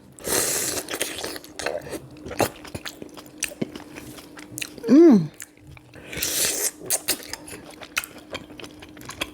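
Close-up eating sounds of someone chewing a sweet potato and sausage boil in butter sauce: repeated small mouth clicks and smacks, with two longer hissing bursts near the start and about six seconds in. A short falling "mm" of enjoyment comes about five seconds in.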